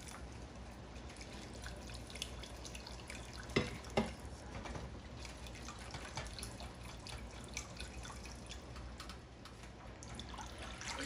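Wire whisk stirring milk into a butter-and-flour roux in a saucepan, making a béchamel: light splashing of the liquid and small clicks of the whisk against the pan, with two sharper knocks about three and a half and four seconds in.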